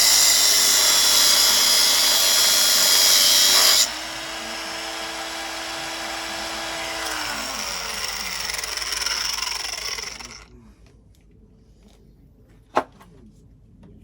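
Angle grinder cutting into a welded-on steel sprocket, loud for about four seconds, then lifted off and spinning free with a steady whine that falls in pitch and dies away about ten seconds in. A single sharp knock comes near the end.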